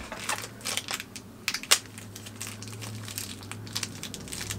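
A mystery pin's crinkly wrapper being pulled open and unwrapped by hand: irregular crinkles and small clicks, with the sharpest crackle about a second and a half in.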